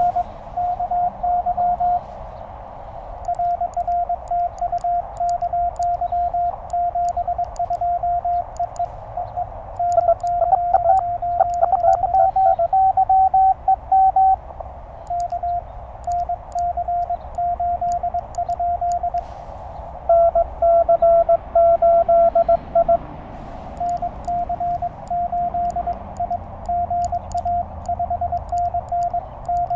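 Morse code tones from a Penntek TR-35 QRP transceiver during a string of contacts: the operator's own keyed sidetone, with faint clicks from the iambic paddles, alternating with short replies from other stations at slightly different pitches.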